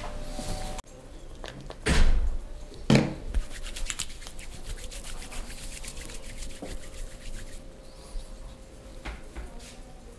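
Hands at work in a barber's massage: two thuds about a second apart, then a long run of quick, fine scratching and rubbing on skin or hair.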